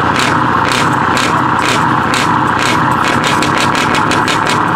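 Heavy truck's diesel engine idling through an open exhaust pipe: a loud, steady rumble with a rapid uneven beat of about three to four pulses a second.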